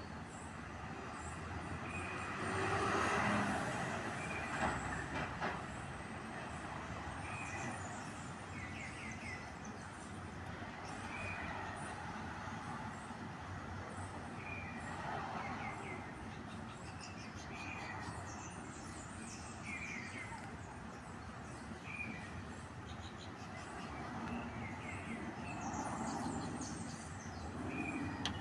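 Steady hum of street traffic, swelling louder a few times, with a small bird giving short, high chirps every second or two.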